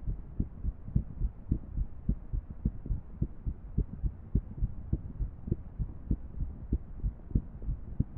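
A woman's heart sounds: low lub-dub thumps of an irregular heartbeat, a few strokes each second in an uneven rhythm.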